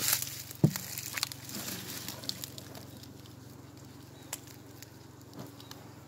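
Honeybees buzzing in a steady hum around an opened hive. A sharp knock comes about half a second in, and scattered light clicks and taps follow as the hive is worked by hand.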